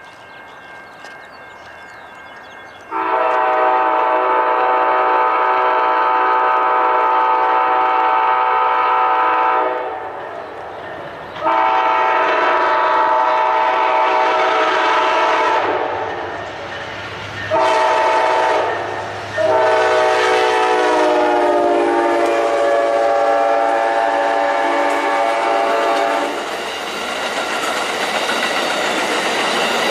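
Amtrak GE P42DC diesel locomotive sounding its multi-note air horn in four blasts, long, long, short, long: the standard grade-crossing signal. The pitch drops during the last blast as the locomotive passes. It is followed by the steady rumble and wheel clatter of the passenger cars going by.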